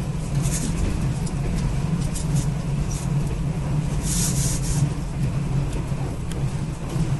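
Steady low rumble of a moving locomotive-hauled sleeper train, heard from inside a passenger coach, with scattered light clicks and a short burst of hiss about four seconds in.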